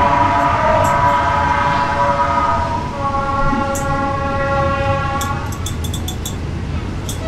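A train horn sounding a long held chord that changes pitch about three seconds in and stops at about five and a half seconds, over the low rumble of the train carriage. A few light clicks follow near the end.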